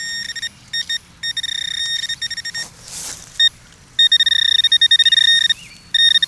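Metal detector giving its target tone, a steady beep repeating in short stretches of under a second to about a second and a half as the coil is swept back and forth over a buried target. The reading is a solid low tone in the pull-tab range, typical of a piece of aluminum.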